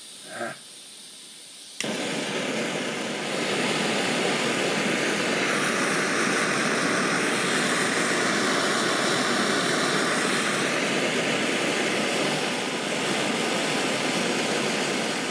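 Optimus 111B pressure stove burner burning Coleman camp fuel with a steady loud rushing hiss, starting suddenly about two seconds in as the burner is lit again.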